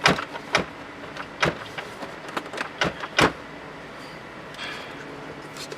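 About five sharp clicks and knocks in the first three and a half seconds, then quieter handling noise: tools and parts being handled during work on the car's interior.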